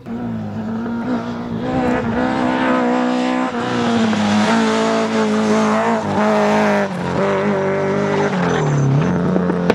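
Rally car engine running hard at high revs, loud, its pitch stepping down and climbing again several times through the run as it goes through the gears.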